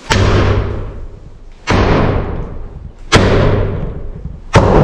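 Four heavy hammer blows about a second and a half apart, knocking out the wooden studs of a framed wall, each strike followed by a long rattling ring through the framing.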